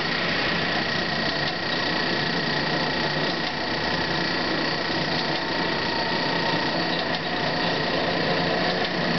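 Marvel Series 8 Mark 1 tilt-frame vertical band saw running under power with no cut: a steady mechanical run with a steady high whine, with the variable-speed drive being turned up at the handwheel.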